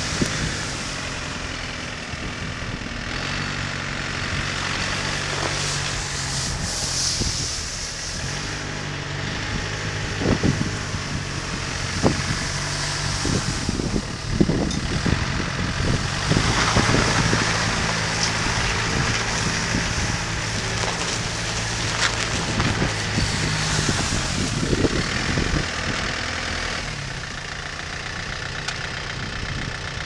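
John Deere 4500 compact tractor's diesel engine running at a steady speed as it drives past, with a few short knocks and clanks from the machine.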